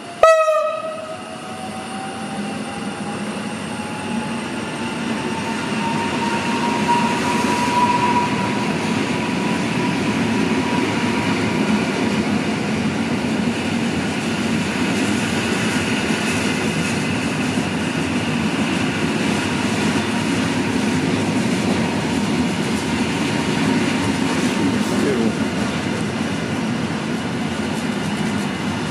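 Koleje Mazowieckie EN57AKM electric multiple unit, two units coupled, gives a short horn blast just after the start and then pulls away along the platform. An electric whine from its drive rises in pitch over the first several seconds and then levels off, over the steady rumble of wheels on the rails.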